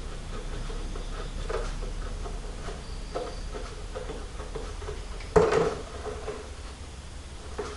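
Light clicks and taps of metal parts and tools being handled, with one louder clunk about five and a half seconds in.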